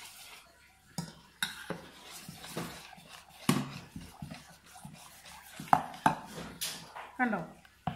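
A metal spoon stirring thin batter in a stainless steel bowl, with irregular clinks and scrapes of the spoon against the bowl's side.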